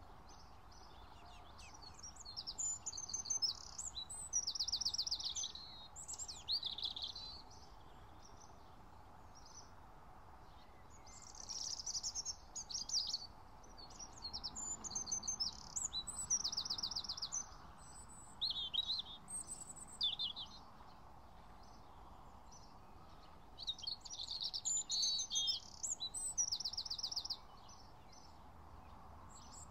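Songbirds singing in repeated bouts of high, quick phrases and rapid trills, with short pauses between bouts, over a faint steady background hum.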